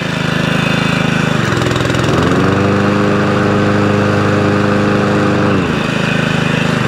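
Honda GXV160 single-cylinder lawn mower engine running. Its revs rise about two seconds in, hold, drop back near six seconds and start to climb again. The carburettor has not been tuned yet: the engine does not idle as well as it should.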